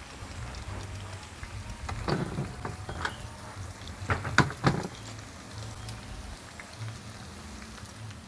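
Chicken nuggets deep-frying in hot oil in a wok, a steady sizzle. A few sharp clinks of metal tongs against the pan come about two seconds in and again around four to five seconds in as the nuggets are turned.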